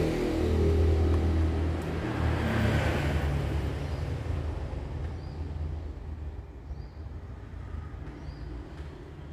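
Motor vehicle engine rumble, loudest in the first few seconds, then fading away steadily.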